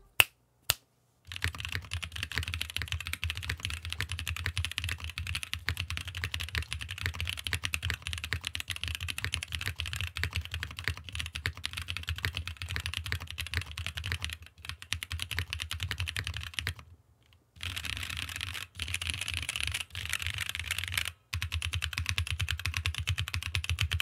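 Typing on a mechanical keyboard fitted with unlubricated Haimu RAW linear switches (long-pole linears with full POM housings and UHMWPE stems): a fast, steady run of keystrokes with an audible spring ping. The typing starts about a second in and breaks off briefly twice, once past the middle and again near the end.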